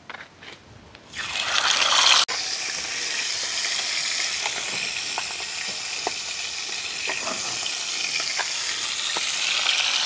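Fish frying in a pan of hot oil: a loud sizzle starts about a second in as the fish go into the oil, then settles into a steady sizzle with scattered small pops.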